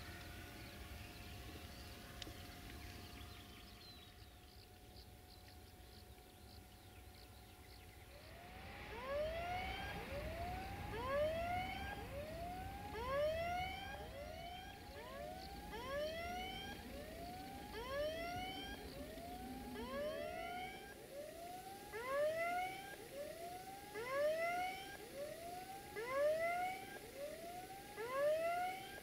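Level crossing warning alarm sounding, a repeated electronic whoop that rises in pitch, about once a second. It starts roughly eight seconds in and signals an approaching train.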